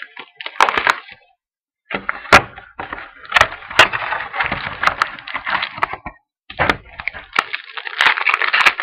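Plastic shrink wrap crinkling and tearing as a sealed trading-card box is opened: dense crackling with sharp clicks, in three stretches broken by short pauses.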